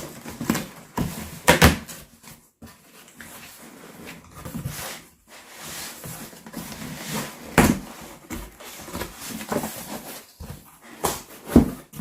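A cardboard box being opened and unpacked by hand: irregular sharp knocks and bumps of the cardboard, with a longer stretch of rustling or tearing packaging in the middle.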